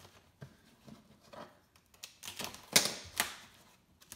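Old vinyl boat-seat cover being cut and pulled loose by hand at the seat's edge: a series of sharp clicks and scrapes, the loudest about three seconds in.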